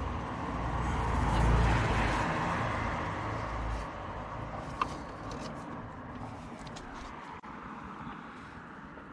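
A road vehicle passing by, its rumble swelling and then fading over the first four seconds. A single sharp click follows about five seconds in, with a few faint ticks after it.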